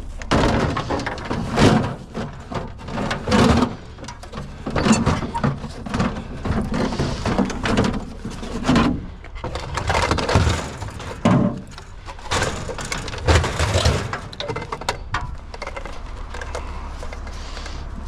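Irregular knocking, clattering and cracking as a sewing machine is handled and its plastic part broken off for scrap. The clatter stops about 14 s in, leaving a steady low noise.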